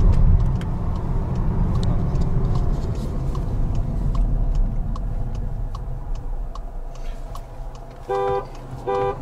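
Road and engine noise inside a Skoda Octavia's cabin, fading as the car slows, with a light tick about every two-thirds of a second. Near the end a car horn gives two short beeps: the countdown honks for a standing-start drag race.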